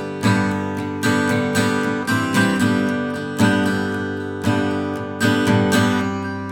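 Background music: an acoustic guitar strumming chords in an instrumental gap between the song's sung lines.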